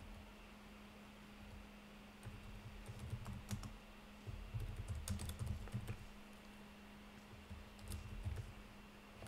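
Typing on a computer keyboard: three runs of keystrokes, starting about two seconds in, around the middle, and near the end, over a steady low hum.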